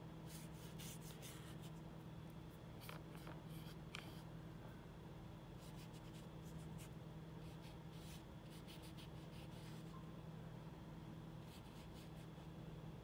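Faint paintbrush strokes scratching across the painting surface, in short irregular bursts with pauses between, over a steady low electrical hum.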